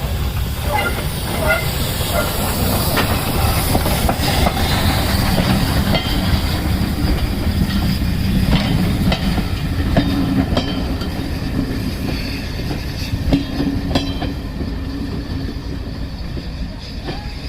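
Steam locomotive Holly Bank No.3 with its train running past, a heavy continuous rumble with sharp clicks of wheels over rail joints and some hiss. A brief wavering squeal comes about a second in.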